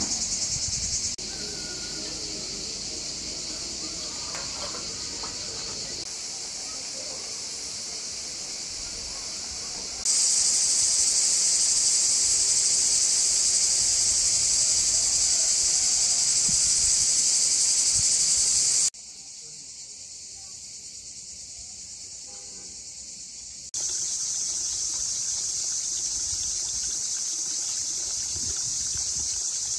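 Steady, high-pitched insect chorus of summer crickets. It jumps louder about ten seconds in, drops back for a few seconds near the end, then returns.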